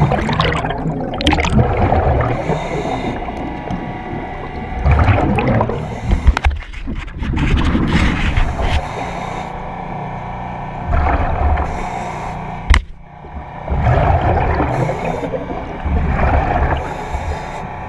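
Underwater sound of a diver breathing in a surface-supplied helmet: exhaust bubbles gurgle out in rushes every few seconds, with a sharp knock about thirteen seconds in.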